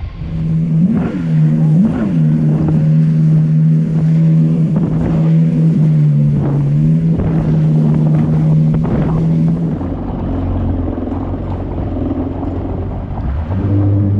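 Kawasaki jet ski engine running at speed with a steady drone, briefly rising and falling twice in the first couple of seconds and dipping around the middle, with the hull slapping over waves and wind on the microphone. About two-thirds of the way through it changes to a lower, deeper note as the craft runs slowly.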